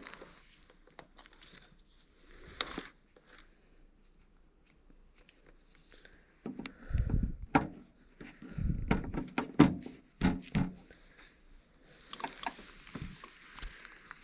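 Scattered clicks and knocks of handling as a power cord is plugged into a portable fridge-freezer, with a cluster of low thumps about halfway through.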